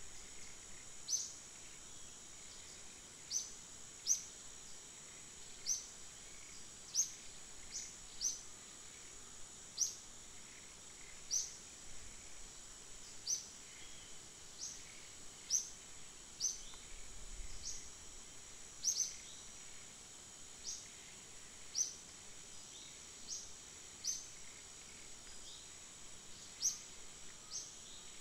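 A bird calling a short, sharp, high chirp every second or two, over a steady high-pitched insect drone.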